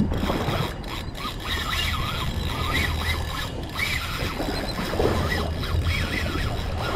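Penn Slammer spinning reel's drag paying out line under a hooked sailfish's pull, in short buzzes that rise and fall in pitch, several times over, with a low steady rumble underneath.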